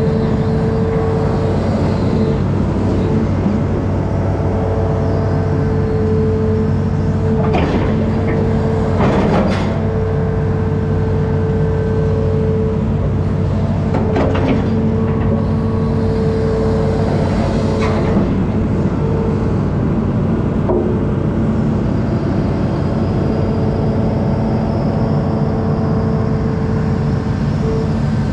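Amphibious excavator's diesel engine running steadily under work, with a few brief rushes of noise through the middle.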